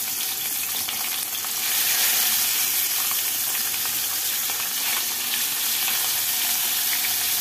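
Whole tengra catfish frying in hot mustard oil in a kadai: a steady, loud sizzle with scattered crackles, swelling slightly about two seconds in.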